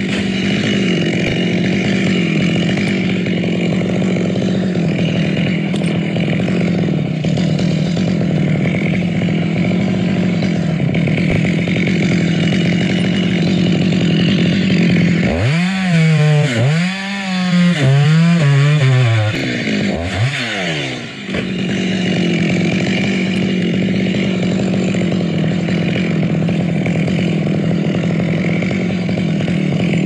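Gasoline chainsaw running while cutting through a coconut palm trunk, a steady engine note for most of the time. About halfway through, its pitch swoops up and down several times over some five seconds, then it settles back to a steady note.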